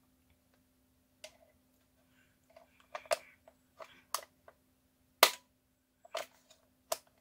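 Irregular sharp plastic clicks and taps, about seven, the loudest about five seconds in, as a small screwdriver pries and knocks at the stuck battery cover of a pistol-grip RC transmitter.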